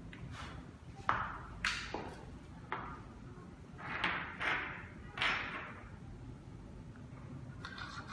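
Hands handling and setting down the parts of a fingerprint door lock: a series of sharp knocks and clinks, about seven in four or five seconds, each dying away quickly.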